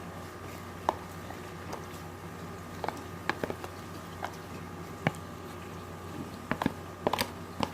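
A spoon stirring slime in a bowl: irregular clicks and taps of the spoon against the bowl as the slime is mixed.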